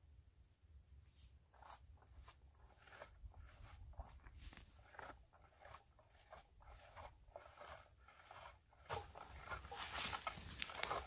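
A red plastic berry picker combing through blueberry bushes: a series of short rustling swishes, louder and quicker near the end.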